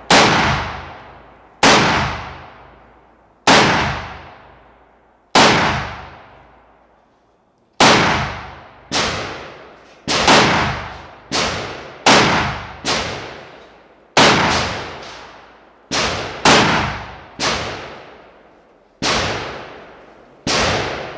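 Gunshots from a long gun, about eighteen in all, each with a long echoing tail. They come about two seconds apart at first and quicken to roughly one a second from about eight seconds in.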